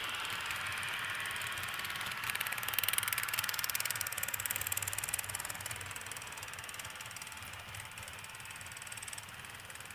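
H0 model train coaches running past on the track, their wheels making a fast ticking rattle. It is loudest about three seconds in, then fades as the train runs away.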